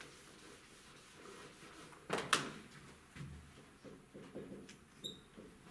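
Working at a whiteboard: an eraser wiping the board, then two sharp clacks about two seconds in, then a marker writing on the board with small ticks and a short high squeak near the end.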